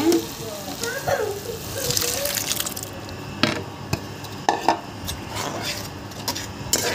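Boiled peas and their cooking water go into a kadhai of hot, oily masala, sizzling and splashing. They are then stirred with a spoon that knocks against the pan several times in the second half.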